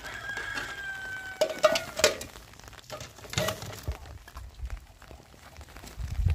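A rooster crows once at the start, one long held note of about a second and a half. Then metal pots and dishes clink several times as they are packed up.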